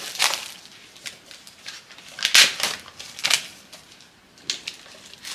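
Plastic packaging crinkling in a few short rustling bursts, the loudest about halfway through, as it is handled and pulled off a new plastic 'granite' chopping board.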